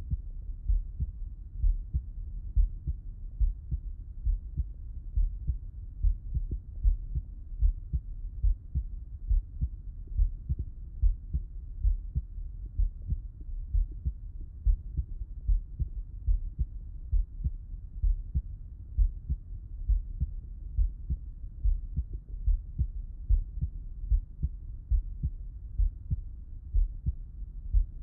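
A man's heartbeat heard through a Littmann stethoscope with him lying on his left side: regular low thumps repeating steadily.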